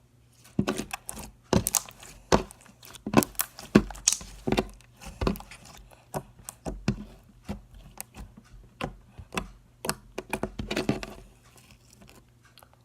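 Slime being squished and poked by hand, giving an irregular run of sticky clicks, crackles and pops that starts about half a second in and stops near the end.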